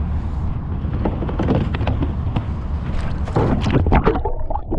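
Lake water splashing and sloshing around a hand and the camera as a bass is released at the surface, over a steady low rumble. Near the end the camera goes under and bubbles gurgle.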